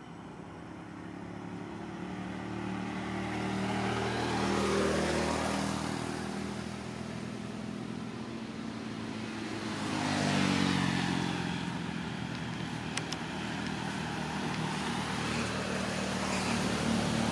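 Motor vehicle engines passing by. The sound swells and fades about five seconds in, swells again about ten seconds in, and builds once more near the end.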